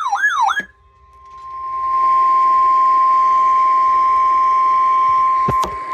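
NOAA Weather Radio warning alarm tone: a single steady high tone that swells in over about a second and a half and then holds, heard through a radio with a hiss of static under it. It is the signal that a warning message is about to be read. Before it, a brief warbling siren-like sweep cuts off; sharp clicks come near the end.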